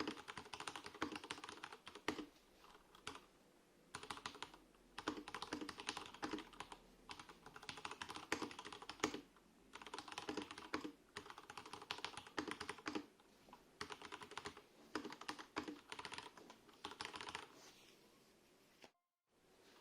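Typing on a Vortex Tab 75 mechanical keyboard, its stabilizers lubed and tape mod applied: rapid runs of key clacks in bursts, broken by short pauses every few seconds. The typing stops just before the end.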